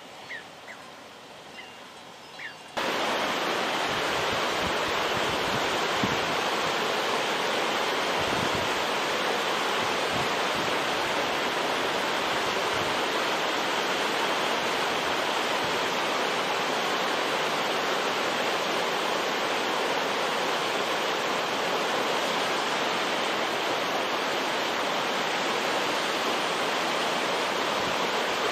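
A loud, steady rushing noise, even and unchanging, that starts abruptly about three seconds in, after a quiet stretch with a few faint high chirps.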